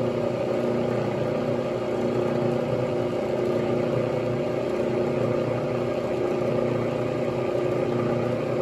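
Bridgeport Series 1 milling machine running steadily, its spindle turning without cutting, giving an even hum with several steady tones.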